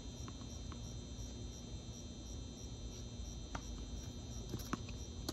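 Crickets chirping steadily at night, with a few sharp knocks from a tennis rally, a ball struck and bouncing; the loudest knock comes near the end.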